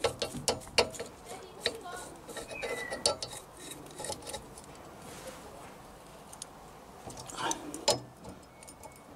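Steel tools clinking and tapping against a three-leg gear puller fitted to a car's rear wheel hub as it is set up, a run of irregular sharp metallic clicks, thinning out after about four seconds with another cluster near the end.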